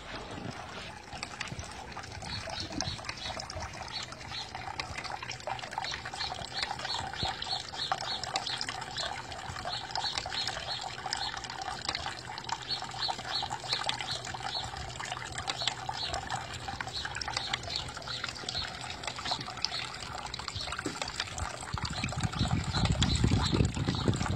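Small bamboo tabletop-style fountain trickling steadily, water spilling from bamboo spouts and splashing into the half-barrel basin. A low rumble swells near the end.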